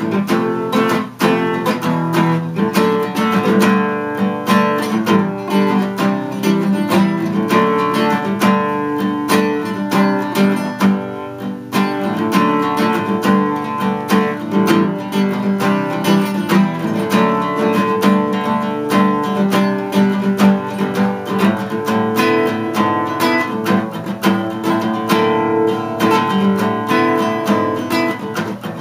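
Solo acoustic guitar playing an instrumental passage, chords strummed in a steady, continuous rhythm.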